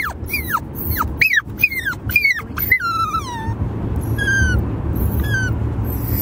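Cavapoo puppy whimpering in high-pitched squeaks: a quick string of short cries, each falling in pitch, then two longer ones about a second apart, a sign of nerves or excitement or both. A steady low car rumble runs underneath.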